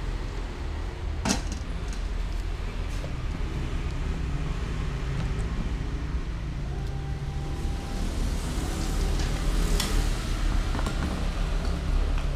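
Gas stove burner running under a pot of water, a steady low rumble with hiss. There is a sharp click about a second in and another near the end.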